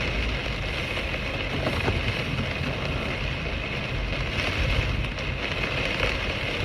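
Torrential rain pouring onto a van's roof and windscreen: a steady hiss over a low, wavering rumble of wind gusting against the vehicle.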